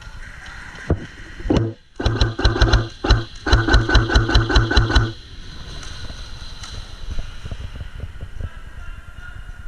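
Airsoft electric gun firing a fast string of shots, about five a second, in two runs with a short break between, after a single sharp knock about a second in.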